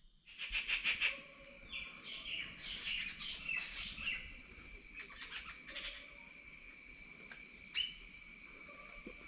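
Forest morning ambience: several birds chirping and calling, busiest in the first few seconds, over a steady pulsing insect trill.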